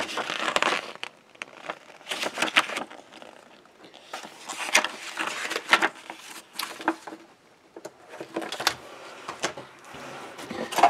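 Paper rustling and soft flapping as the pages of a printed instruction booklet are flipped and handled, in irregular spells with a few sharp ticks. Near the end, hands rustle in a cardboard box.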